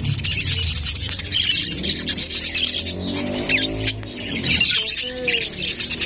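A flock of budgerigars chirping and warbling together in a dense, continuous chatter.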